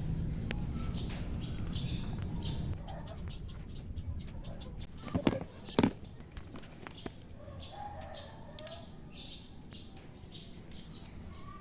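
Birds chirping over and over in short high calls, with two sharp knocks a little past halfway.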